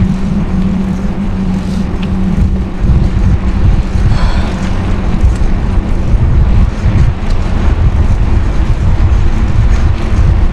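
Wind buffeting the microphone while riding a bicycle: a loud, uneven low rumble, with a steady low hum that fades out about two and a half seconds in.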